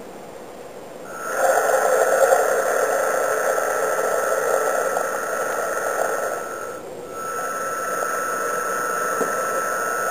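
Twin small electric drive motors of a radio-controlled model towboat start up about a second in and run steadily at very slow speed under the electronic speed controller, with a steady whine. They drop out briefly about seven seconds in, then run again.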